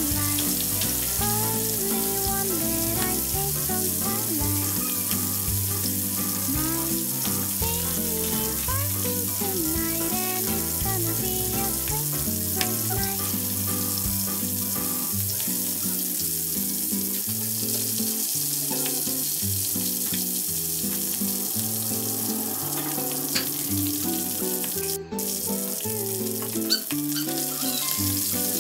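Chicken pieces frying in shallow oil in a wok, with a steady sizzle. A sharp click near the end as tongs turn the pieces.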